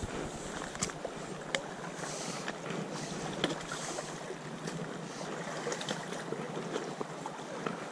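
Shallow, fast creek water rippling and burbling close by, with scattered small splashes and ticks.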